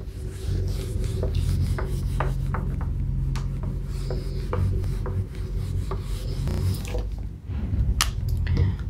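Cloth wiping a whiteboard clean, a steady back-and-forth rubbing for about seven seconds, followed by a sharp click about eight seconds in.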